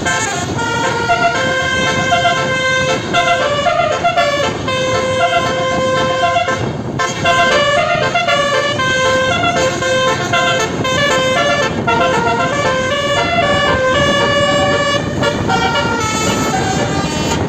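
Basuri 12-note telolet bus horn playing a continuous melody, its notes changing in quick steps, with a brief break about seven seconds in.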